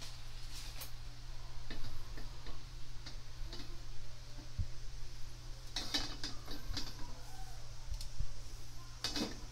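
Carbon-steel wok sitting on a gas stove burner: faint, irregular metallic ticks and small crackles over a low steady hum, with two louder crackles about six and nine seconds in.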